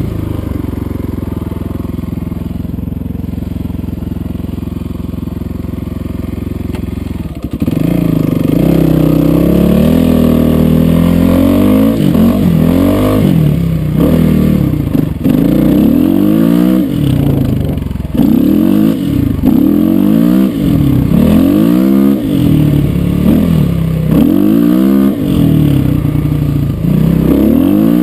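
Dirt bike engine idling steadily. About seven and a half seconds in it pulls away and runs hard, revving up and dropping back over and over, every second or two, as the rider works the throttle.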